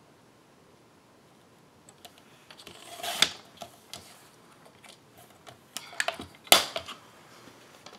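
Fiskars sliding paper trimmer cutting plaid patterned paper: after a quiet start, a quick scrape of the blade carriage about three seconds in, then light clicks and paper handling sounds. The sharpest clack comes about six and a half seconds in.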